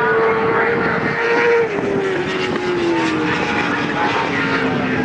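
A steady engine drone whose pitch falls smoothly and slowly over about four seconds, over a constant background of outdoor noise.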